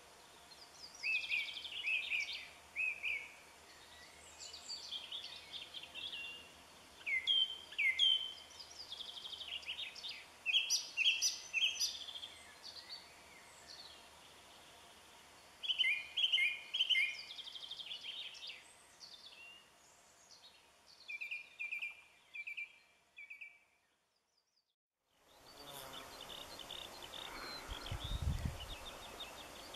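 Songbirds singing in short chirping phrases over a faint open-air background. About 24 seconds in the sound cuts out for a second, then a different outdoor background returns with quick high chirping and a brief low thump near the end.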